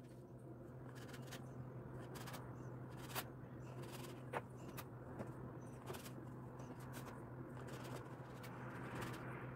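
Round metal cookie cutter pressed repeatedly through soft dough onto a wooden board, giving several faint taps and scrapes, over a steady low hum.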